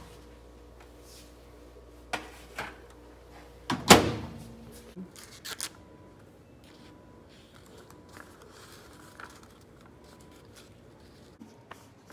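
Microwave oven door being handled: two clicks about two seconds in, then the door shut with a loud thunk about four seconds in, followed by a few lighter clicks. After that, quiet room tone with faint small clicks.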